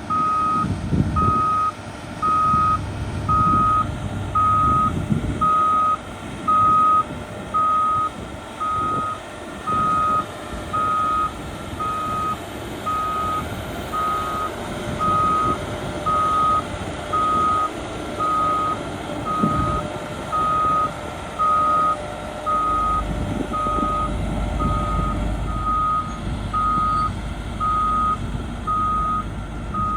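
Backup alarm of a heavy earthmoving machine beeping steadily, about once a second, as it reverses, over the low rumble of its diesel engine, which swells a few times.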